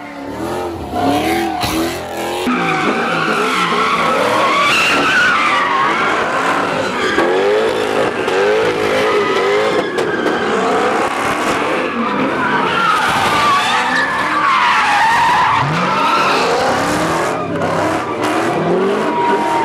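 Cars doing donuts: tires squealing and V8 engines revving up and down in waves as the rear wheels spin. There is a hard cut about two and a half seconds in, after which a Corvette carries on spinning.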